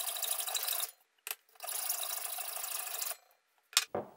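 Steel scraping and ratcheting of a hand-turned cutting tool working the end of a steel shaft clamped in a bench vise. It comes in two turns with a short pause between them, then a couple of light clicks near the end.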